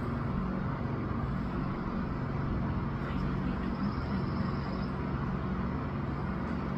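Steady low hum over an even outdoor background noise, with no distinct event.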